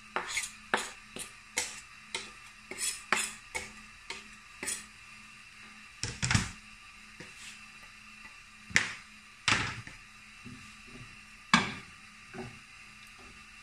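A utensil and a chopping board tapping and clicking against a nonstick frying pan as chopped garlic is knocked off the board into hot oil and stirred. The taps come quickly at first, then give way to a few louder knocks.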